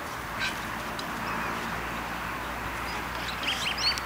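Wild birds chirping in quick, repeated short calls, starting about three seconds in, over a steady background hiss.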